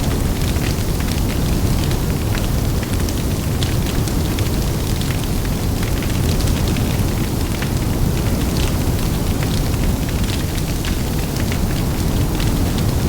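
Large bonfire burning: a steady low rumble of flames with frequent sharp, irregular crackles and pops throughout.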